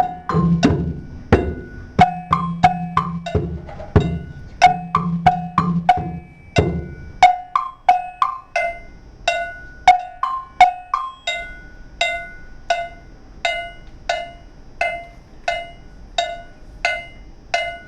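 Student drum circle playing hand percussion: low drum beats under sharp, pitched strikes in a steady rhythm. About seven seconds in, the low drums drop out and the sharp strikes carry on alone at about two a second.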